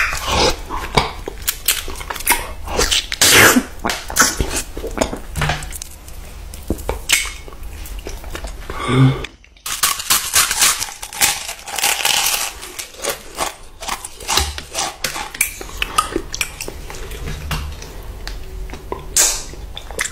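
Close-miked eating sounds: a dense run of sharp clicks and crunches from biting and chewing frozen ice cream treats and a crisp waffle cone. There is a brief gap about nine and a half seconds in.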